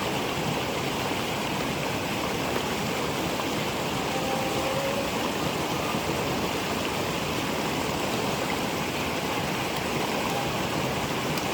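Small waterfall and stream water rushing steadily.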